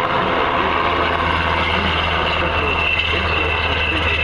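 Sikorsky Black Hawk helicopter flying low overhead, its twin turboshaft engines and rotors making a steady, deep, heavy noise, with a high turbine whine that becomes clearer about halfway through.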